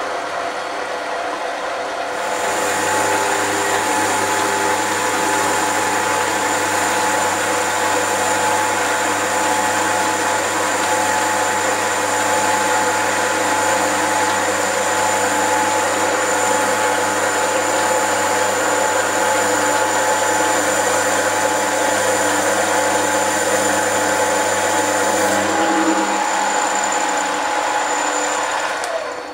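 Mini lathe running steadily, its chuck spinning a cast iron bar while the tool cuts it. The sound steps up and gets louder about two seconds in.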